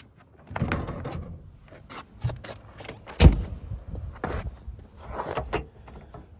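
Knocks and clunks from handling a 1996 Rover Mini's door and interior fittings, several in a row, the loudest a sharp knock about three seconds in.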